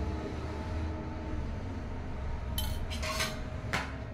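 A steel spoon clinking against a small steel bowl three times in the second half as curd is spooned out, each clink short and ringing, over a low steady hum.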